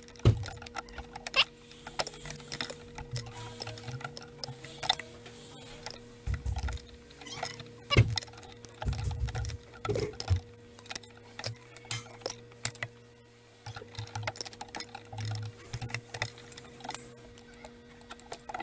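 Irregular small metallic clicks, taps and low knocks of a wrench working the brake line fittings on a brake (ABS) module, as the lines are loosened and disconnected, over a steady electrical hum.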